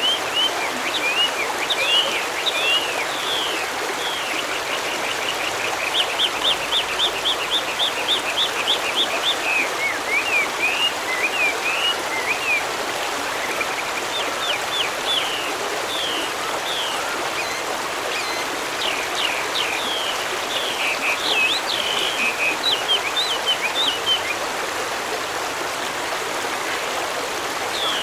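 Stream running steadily, with several small birds chirping and calling over it, among them a fast, even trill of about a dozen short notes about six seconds in.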